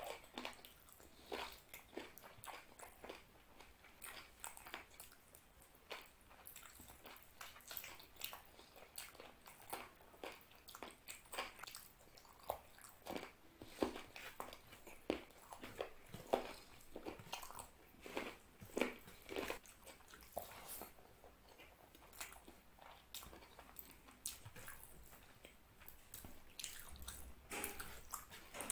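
Close-miked chewing of mutton curry and rice, with many irregular wet mouth clicks and smacks, mixed with the squish of rice and curry being mashed together by hand.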